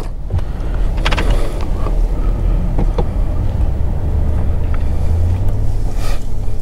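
Car engine and road rumble heard from inside the cabin while driving: a steady low drone, with a few light knocks.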